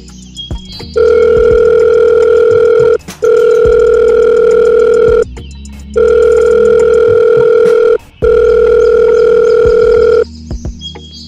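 Electronic telephone tone, a steady single-pitched beep sounding four times for about two seconds each, in two pairs with short breaks: the line ringing on a phone call.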